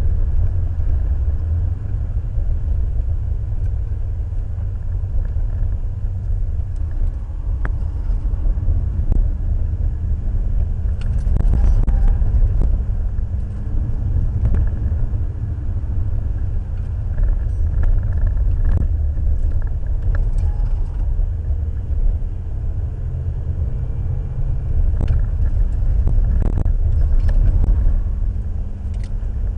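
Cabin noise of a Citroën Xantia being driven briskly: a steady low rumble of engine and road, picked up through the windscreen. There are a few sharp clicks scattered through it.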